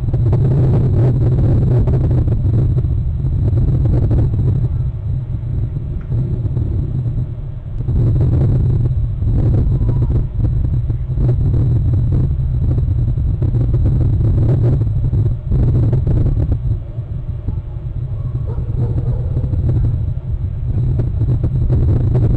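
Loud, low rumble that swells and dips irregularly in level.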